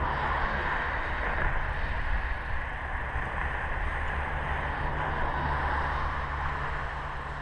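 Wind buffeting the camera microphone: a steady low rumble under a broad hiss.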